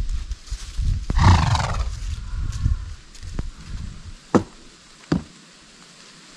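A horse neighs once, about a second in: one short call that falls in pitch. Later come two sharp knocks, a horse's hooves striking a wooden pallet.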